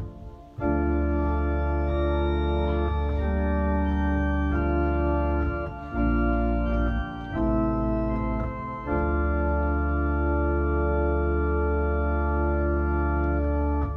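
Organ playing a run of sustained chords over a deep pedal bass, changing chord every second or two, then holding one long final chord from about nine seconds in: the closing cadence of the psalm setting.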